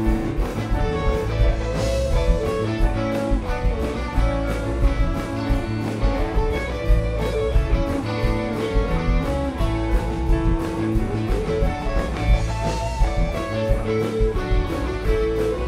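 Live rock band playing an instrumental: a Les Paul-style electric guitar playing lead over acoustic guitar, bass, keyboards and a steady drumbeat.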